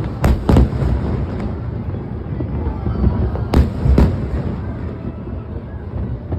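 Aerial fireworks shells bursting in a finale display: sharp bangs about a third of a second in, again just after half a second, and twice more around three and a half to four seconds in, over a continuous rumble of further bursts.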